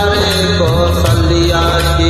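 Hindi devotional song (bhajan) playing: a gliding melody line over a steady low bass and percussion karaoke backing.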